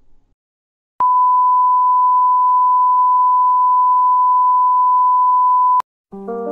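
Steady 1 kHz television test-pattern tone, the reference beep that goes with colour bars. It starts abruptly about a second in, holds for nearly five seconds and cuts off sharply with a click, then keyboard music starts near the end.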